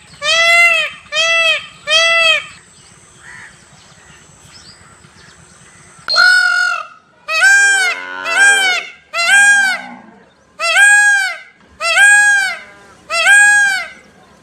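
Peacock calling: loud, repeated wailing calls, each under a second long. There are three in quick succession, a pause of about four seconds, then a series of about seven more, with a second, lower-pitched call overlapping them around the middle.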